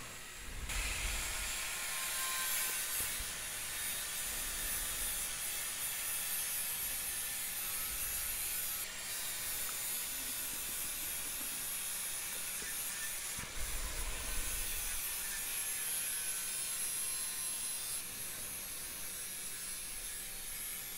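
Angle grinder with a flap disc grinding rust off a steel radio case down to bare metal, a steady grinding that starts about a second in.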